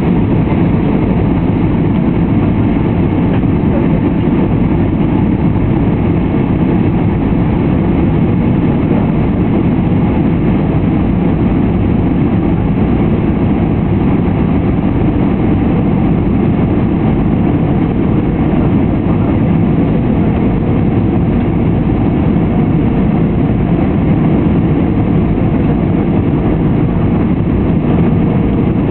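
Steady cabin noise of an Airbus A320 on its descent: a low, even roar of engines and rushing air heard from inside the cabin, with a faint steady hum running through it.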